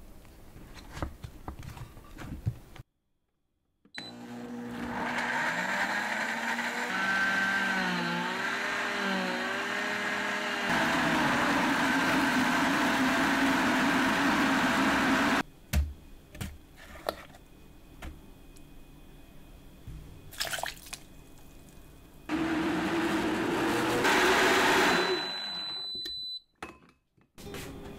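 High-powered countertop blender puréeing dried red chilies, garlic and fruit into a thick paste. The motor starts about four seconds in, its pitch wavering while the chunks are chopped, then runs steadily and louder until it stops about halfway. After a few small knocks of handling, a second short burst of blending comes near the end.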